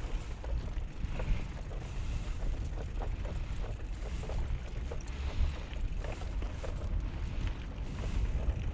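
Wind buffeting the microphone, with a steady low rumble and scattered small clicks and rattles from rolling along a concrete sidewalk on a bicycle.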